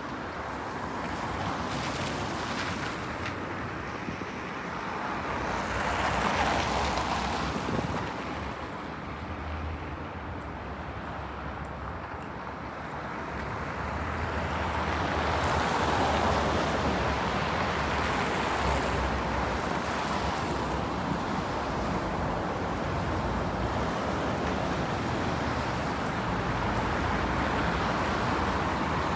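City street traffic: cars passing on the avenue. The tyre noise swells about six seconds in and again from about fifteen seconds, and stays at a steady wash in between.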